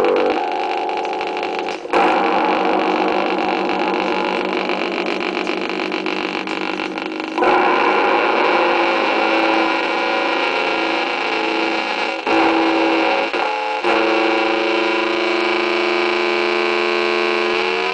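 Homemade ring modulator effect played through a speaker, giving sustained, noisy tones made of many unevenly spaced pitches. The sound changes abruptly every few seconds, and near the end its pitches start to glide.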